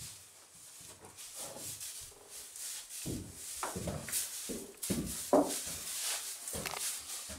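A sleeping pet snoring, with irregular short snorts and snuffles coming close together in the second half and one louder snort a little past halfway.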